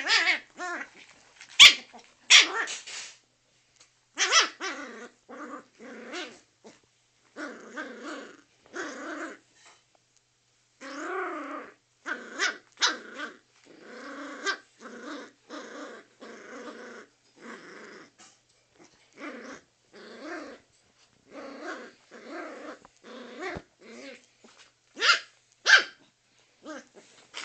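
Jack Russell terrier growling in short repeated bouts while attacking a hairbrush, with sharp barks breaking in: several near the start and a loud pair near the end.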